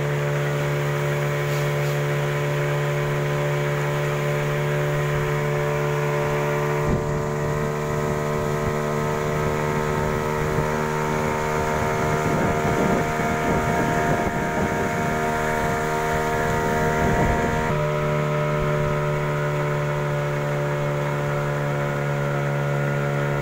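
Small boat's outboard motor running steadily at cruising speed, one unchanging drone, with water rushing along the hull. A rougher low rumble comes in about seven seconds in and eases off near eighteen seconds.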